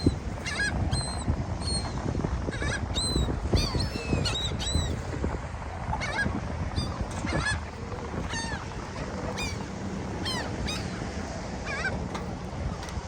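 Gulls calling over and over, many short, sharp cries overlapping one another, over a steady low rumble of wind on the microphone.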